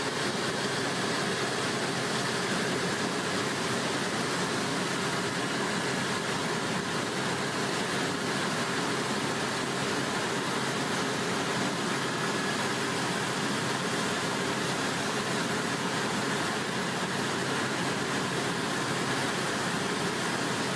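Helicopter in flight: a steady, even engine and rotor noise that holds at one level.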